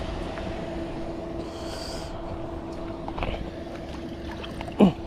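A steady low mechanical hum, like a motor running, with a brief hiss a moment in and one short, loud sound sliding down in pitch near the end.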